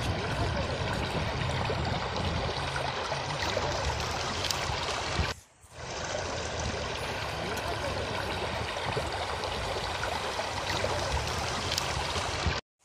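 Mountain stream flowing steadily over rocks. The sound dips away briefly about halfway through and cuts out suddenly near the end.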